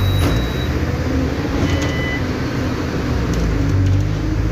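Mercedes-Benz OF-1722M bus's 218 hp diesel engine running with a steady low rumble. Two brief high-pitched tones sound over it, one at the start and one about two seconds in.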